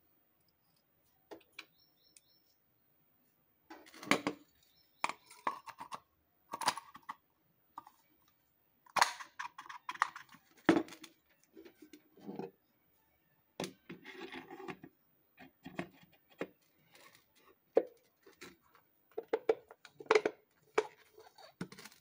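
Irregular clinks, knocks and scrapes of metal parts being handled and fitted as a ceiling fan motor is put back together by hand: the stator, spring washer and cover plate set in place and pressed down.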